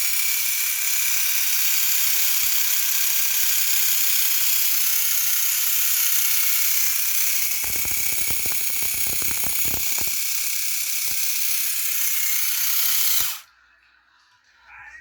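The small electric motor and gears of a NEW-STAR Power Bike ZX-4 toy motorcycle whir steadily, switched on, with a run of light knocks about halfway through. The whir stops abruptly near the end.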